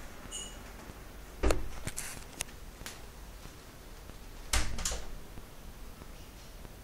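A few sharp knocks and clicks in a quiet room: a loud one about a second and a half in, three lighter clicks soon after, then two more knocks close together later on.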